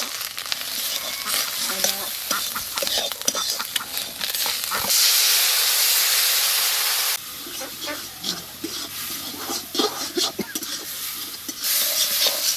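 Metal spatula scraping and stirring spices into dried pomfret frying in oil in a steel wok, with crackling sizzle. About five seconds in, water poured into the hot wok sets off a loud hiss for about two seconds, then the stirring and sizzling go on.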